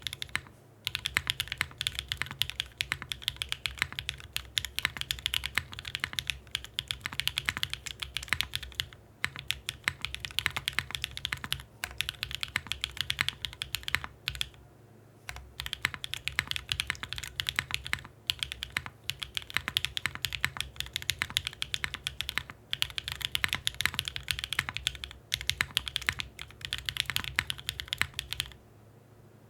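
Typing on a mechanical keyboard with lubed Green Jacket linear switches on an FR4 plate in a gasket and leaf-spring mount: a fast run of keystrokes in bursts, with short pauses between runs.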